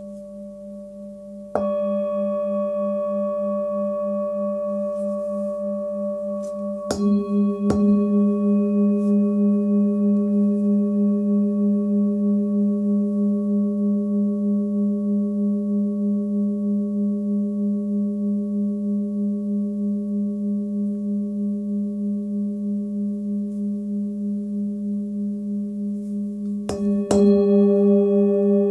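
Hand-forged Sun Moon singing bowl, 18 cm, tuned to about 205 Hz (G#), struck about a second and a half in, twice around seven to eight seconds, and twice in quick succession near the end. Each strike sets off a long ring that pulses evenly and slowly fades until the next strike.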